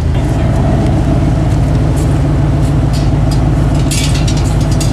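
A vehicle's engine and road noise while driving, a steady low drone, with a few brief rattles near the end.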